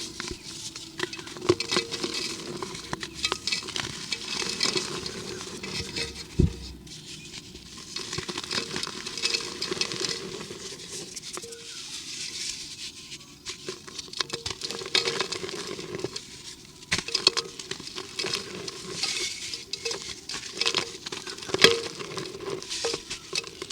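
Dry cement and dirt crumbling into gritty pieces, a dense patter of small crackles and ticks with a few louder knocks.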